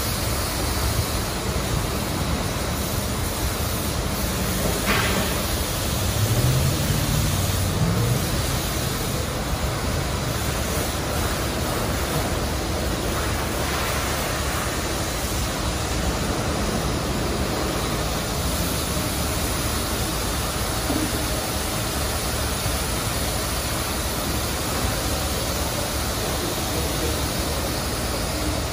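Steady hiss of water spraying in a truck wash bay as a semi-truck is washed down, with a short low rumble about six to eight seconds in.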